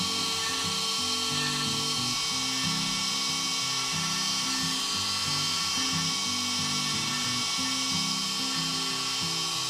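MillRight Mega V CNC router V-carving pine with a 90-degree V-bit: the router spindle runs with a steady high whine while the stepper motors give off low tones that jump in pitch every fraction of a second as the head changes direction.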